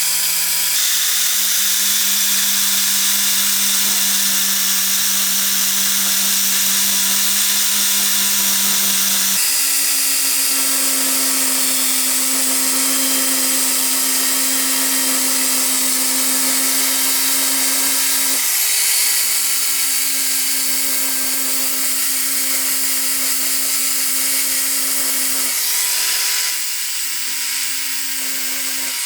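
Electric power tool running continuously with a steady motor hum and a loud, high grinding hiss. The hum jumps to a new pitch several times, about a second in, about a third of the way through and again near the two-thirds mark.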